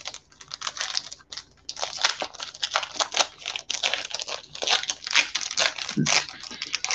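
Foil wrapper of a trading card pack crinkling in the hands as it is opened, a rapid, irregular run of crackles.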